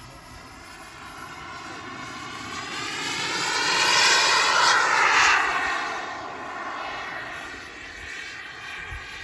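Radio-controlled IAD Designs Serpent model jet making a pass: its engine noise swells to a peak about four to five seconds in, the pitch of its tones dropping as it goes by, then fades as it flies away.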